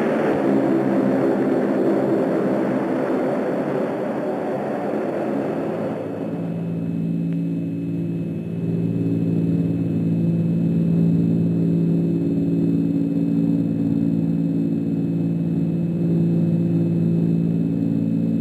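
Steady drone of a propeller airliner's piston engines, a film sound effect. For about the first six seconds it is mixed with a louder, hissier wash that then drops away, leaving only the even engine hum.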